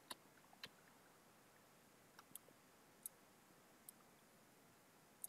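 Faint computer mouse clicks, about seven at irregular spacing, over near-silent room tone.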